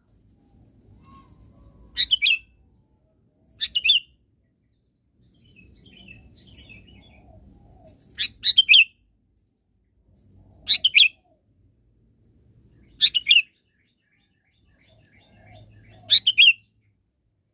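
Sooty-headed bulbul singing, six short loud song phrases about every two to three seconds, each under a second long: the lively song used as a lure call to draw other bulbuls.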